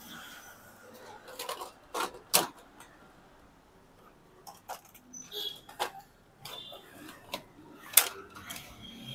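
Scattered sharp plastic clicks and knocks as a motorcycle's plastic instrument-cluster housing is handled, unclipped and lifted off, the loudest knock near the end.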